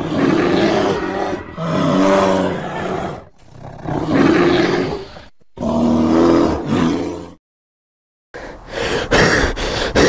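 Monster-like roaring: four long, loud roars of about a second and a half each, broken off by a sudden second of dead silence about seven seconds in, then rough noise.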